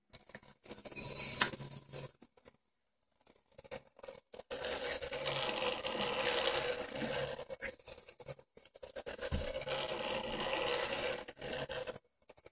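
Homemade 3D printer's X-axis carriage driven by a NEMA 17 stepper motor and GT2 belt, sliding on linear bearings along 8 mm steel rods during a gantry test. A short move about a second in, then two longer moves of a few seconds each, with a brief stop between them about two-thirds of the way through.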